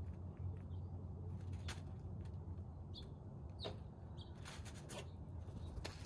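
A scrub-jay rustling and scratching about in dry leaves and pine needles, a few short scratchy sounds spaced out, then a flutter of wings near the end, over a steady low hum.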